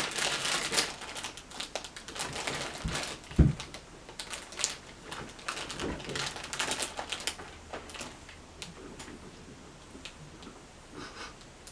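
A chair being kicked and knocked from behind: scattered knocks, clicks and rattles, with one heavier thump about three and a half seconds in.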